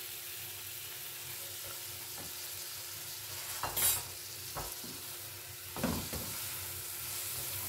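Bean sprouts and sliced vegetables sizzling as they are stir-fried in a non-stick wok. The utensil is pushed through them, with two louder strokes against the pan, about four seconds in and again near six seconds.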